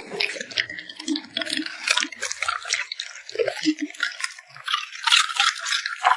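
A dog eating close to the microphone: quick, wet lip-smacking and chewing clicks that come in rapid irregular runs.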